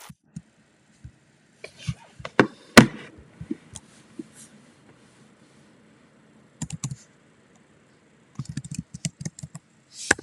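Irregular sharp clicks and knocks, with one loudest knock about three seconds in and quick runs of clicks near the end.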